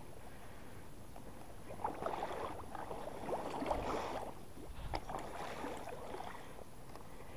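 Two bursts of water splashing close by, the first about two seconds in and lasting a couple of seconds, the second starting about five seconds in.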